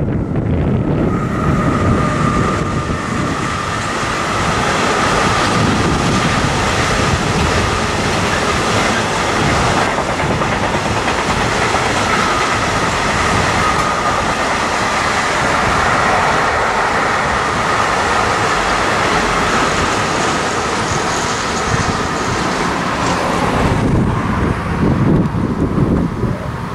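Intermodal freight train of container and tank-container wagons running past on the rails, with the wheels clattering and a steady high ringing tone over the rumble. The wagon noise drops away sharply near the end as the last wagons pass.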